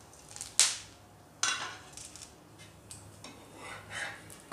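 A stainless steel pan lid clinks twice against the griddle pan as it is lifted off and set down, about half a second and a second and a half in, the second ringing briefly. Then a spatula scrapes and taps on the pan as it slides under the gram-flour pancake.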